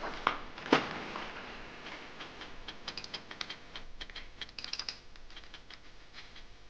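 Typewriter keys clacking in quick runs of typing, after two sharper knocks in the first second.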